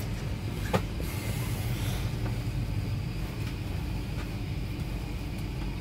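Steady low hum and rumble of an Airbus A380's cabin while the aircraft stands on the ground being de-iced. A sharp click comes about three-quarters of a second in, and a brief faint hiss follows between about one and two seconds.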